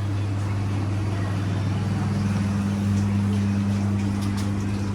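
Steady low electric hum from running machinery, an even drone with no change in pitch.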